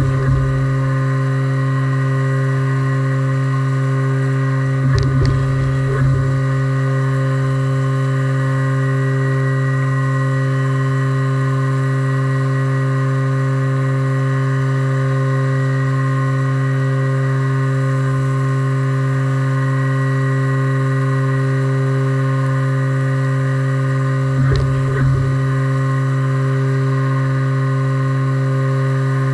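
Haas VF2 CNC vertical mill with its spindle turning at 8100 RPM, a loud, steady whine made of several held tones while it machines the part. Short low rumbles come about five seconds in and again near the end.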